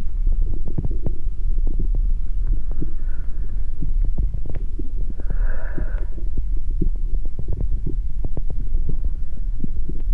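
Amplified heart sounds: a loud, dense, low throbbing rumble scattered with irregular clicks and crackles. A hazy, higher swell rises briefly about three seconds in and more strongly near six seconds.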